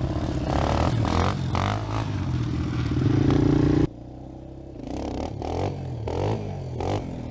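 ATV engine running and revving, its pitch rising and falling; about four seconds in it cuts off abruptly to a quieter engine sound that keeps revving up and down.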